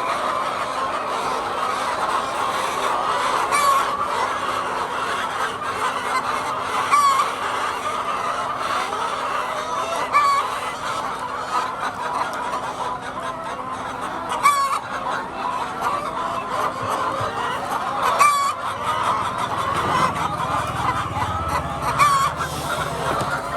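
A flock of hens clucking and chattering together in a dense, continuous mass. A short, sharper sound stands out about every three and a half seconds, over a faint steady hum.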